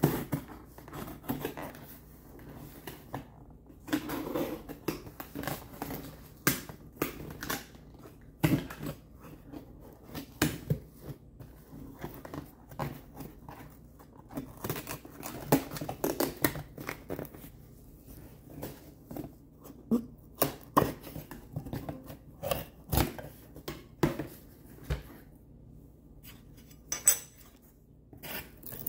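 Cardboard shipping box and its packaging handled and opened by hand: irregular knocks, clicks, rustling and scraping throughout.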